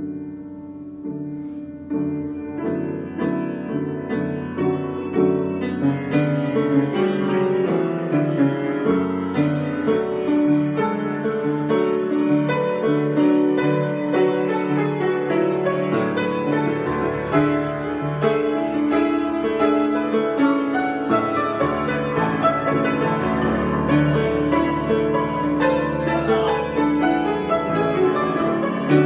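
Piano improvisation: chords and a moving line of sustained notes, growing louder over the first several seconds and then played on at a steady level.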